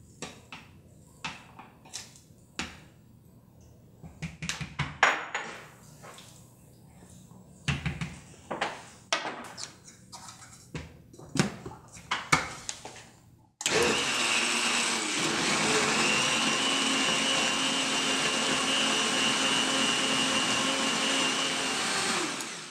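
Scattered clicks and knocks as ingredients are scraped from small dishes into a Vitamix blender jar and the lid is set on. About 13 seconds in, the Vitamix high-speed blender switches on abruptly and runs steadily, puréeing the soup, then spins down near the end.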